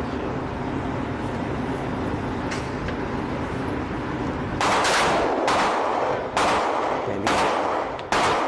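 Steady background hum, then from a little past halfway a string of about six gunshots, roughly one a second, each followed by a short echo.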